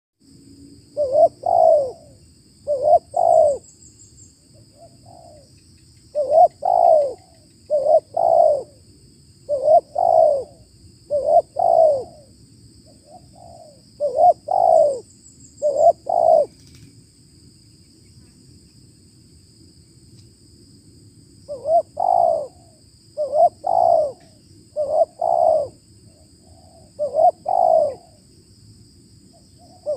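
Spotted dove (tekukur) cooing: repeated phrases of low, rolling coos with short breaks between them and a longer pause of about five seconds midway.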